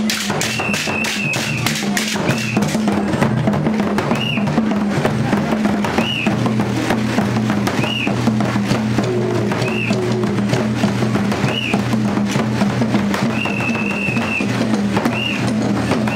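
Ugandan traditional drum ensemble: laced hide drums struck with sticks and hands in a fast, dense rhythm. Short high-pitched calls recur over the drumming every second or two.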